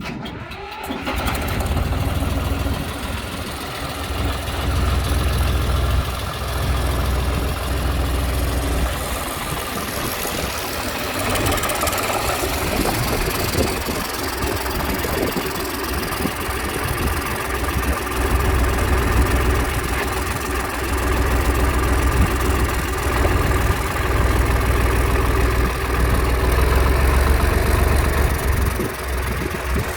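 Koyker backhoe's engine starting and then running at idle, a steady low engine sound that swells and eases a little in loudness.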